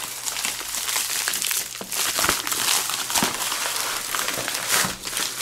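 A plastic FedEx shipping envelope crinkling and rustling as hands pull it open and slide the boxed phone out, in a run of irregular crackles.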